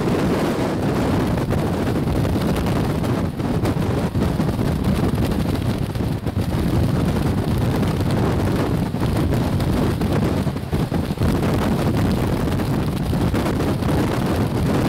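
Hurricane-force storm wind buffeting the microphone: a loud, steady, rumbling noise with constant rapid flutter.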